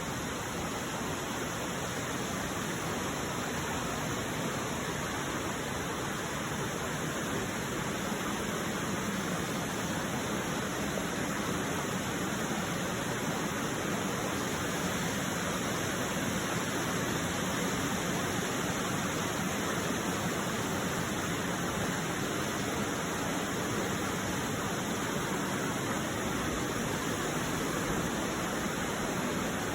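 Kamadaru waterfall rushing steadily, an unbroken hiss and roar of falling water.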